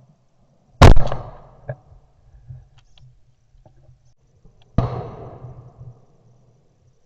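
Two shotgun shots about four seconds apart, the first very loud and the second quieter, each trailing off in an echo.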